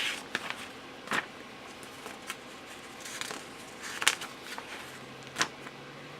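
Pages of a paper instruction booklet being handled and turned: a handful of short rustles and taps, spaced a second or so apart.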